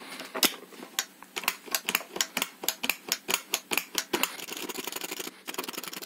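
Repeated plastic clicks of the Samsung VC-6714HNS vacuum cleaner's power push-button being pressed and released to test it, now that a spacer enlarges its travel, with a quicker run of clicks near the end.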